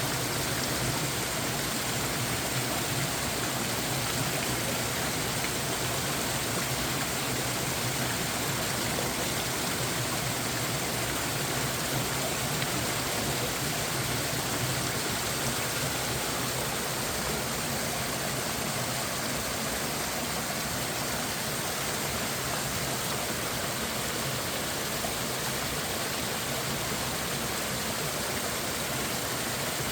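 Mountain stream water rushing steadily, an even wash of noise that does not change.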